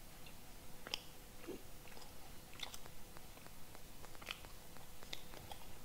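A person chewing and biting a dry chestnut cake close to the microphone: faint, irregular small crunches and mouth clicks.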